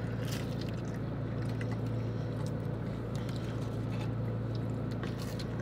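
Steady low hum of a car idling, heard inside the cabin, with a few faint clicks and rustles from eating.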